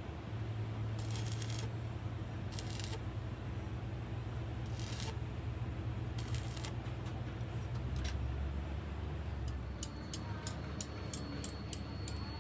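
A steady low machine hum, with several short scraping hisses a second or two apart, then a quick run of sharp ticks near the end.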